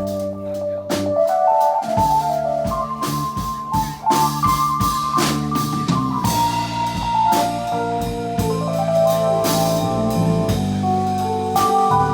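Live band playing an instrumental break: drum kit keeping time under a keyboard melody and sustained low chords.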